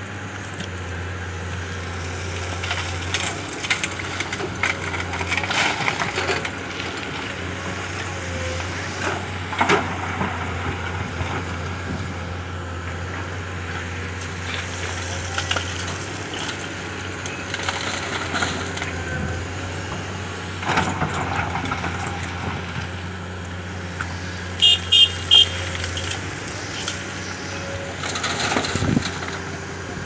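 Komatsu crawler excavator's diesel engine running steadily while its bucket dumps rock and gravel into a dump truck's steel bed, the stones clattering and crunching down several times. Late on, three short high beeps in quick succession.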